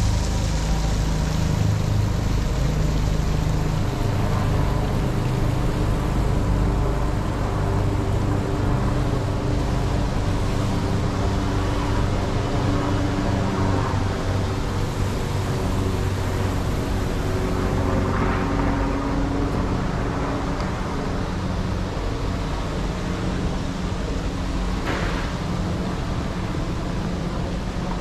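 City street ambience: a steady hum of road traffic.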